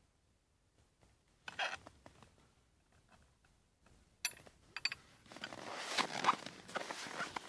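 Rustling and scraping of clothing and footing in snow as a long wrench is strained against a seized tractor wheel nut. There is a short grunt-like burst early on and a sharp click about four seconds in.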